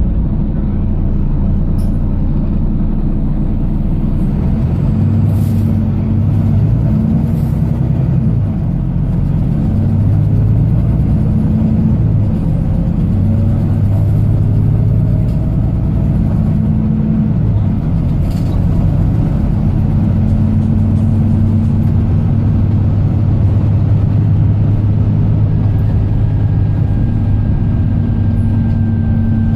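Diesel engine of a Wright-bodied Volvo double-decker bus running under way, heard from inside the bus, with road rumble. The engine note breaks off and picks up again several times.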